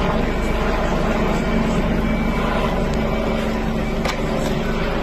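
Emergency vehicle engines, such as those of the fire engines, running steadily: a constant rumble with a faint hum, and a brief click about four seconds in.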